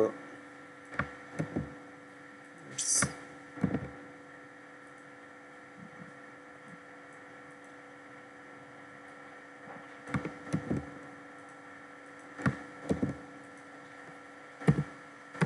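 Short clusters of clicks and taps from a computer keyboard and mouse, over a steady electrical hum.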